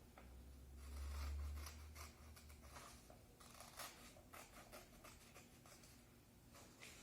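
Scissors cutting paper: a series of faint, irregular snips, over a low rumble that fades out about three seconds in.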